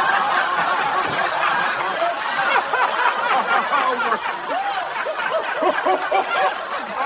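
Laughter: snickering and chuckling, with a quick run of repeated ha-ha bursts about four to five seconds in.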